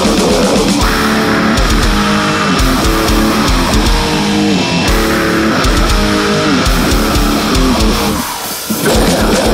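Grindcore: a distorted electric guitar riff stepping through chords over bass and pounding drums. Near the end the band drops out for a moment, then crashes back in.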